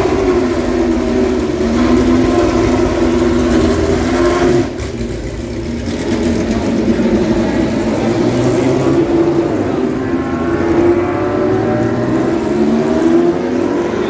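Racing car engines at high revs, their pitch rising and falling over and over as the cars accelerate, shift and pass. Near 5 seconds in the sound drops away briefly, then the engine note builds again.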